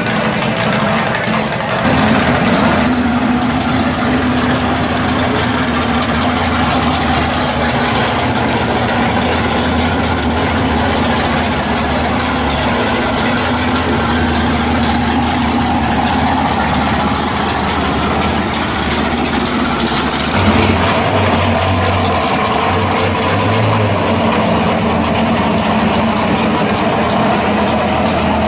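Muscle-car V8 engines idling one after another, with the engine note changing abruptly at each cut to the next car. There is a brief rise in the engine note about twenty seconds in.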